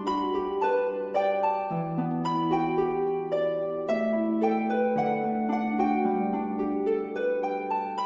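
Background music: a gentle plucked-string melody, harp-like, over sustained lower notes.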